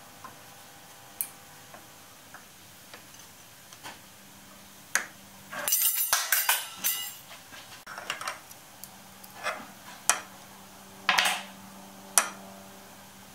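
Sharp metallic clicks and clinks from hands and a T-handled chuck key working a lathe's four-jaw chuck, fitting the key and moving the jaws. The clicks come singly, with a dense run of louder clinks about halfway through and two more loud clinks near the end.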